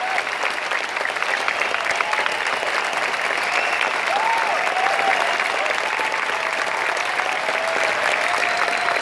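Large crowd applauding steadily, a dense mass of clapping, with a few drawn-out cheering calls held above it.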